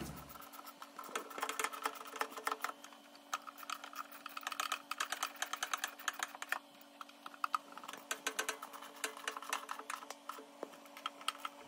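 Irregular small metallic clicks and taps of nuts, lock washers and a wrench being fitted onto the bolts of a lathe spindle-lock bracket, over a faint steady hum.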